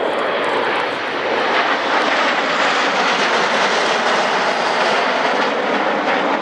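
Jet noise from a formation of Red Arrows BAE Hawk T1 jets passing overhead: a loud, steady rush from their Rolls-Royce Turbomeca Adour turbofan engines.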